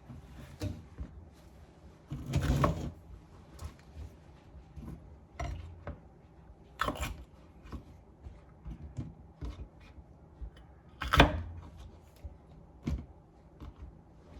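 Kitchen knife cutting green peppers on a cutting board: irregular taps and knocks of the blade hitting the board, with louder knocks about two and a half, seven and eleven seconds in.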